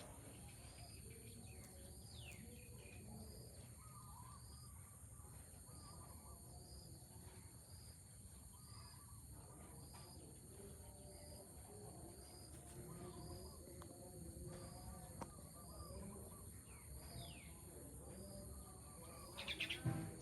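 Faint outdoor background with a short high chirp repeating about once a second, and a few sharp knocks near the end.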